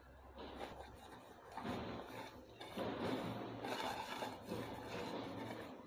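Hand mixing grated dry coconut into a roasted-semolina and sugar filling in a steel bowl: a faint, dry rustling and rubbing that comes in a few stretches.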